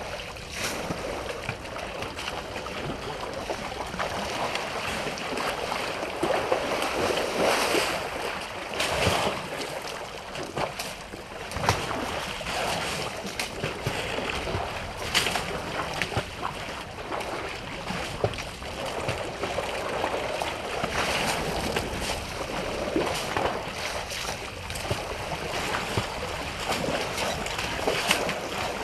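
African elephants splashing and sloshing water as they wade and drink at a waterhole, with irregular splashes from trunks and feet.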